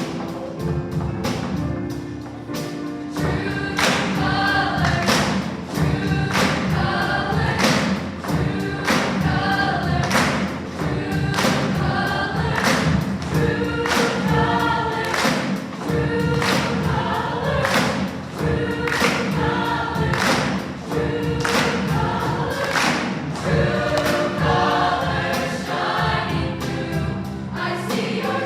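Choir singing in harmony with a steady accompanying beat.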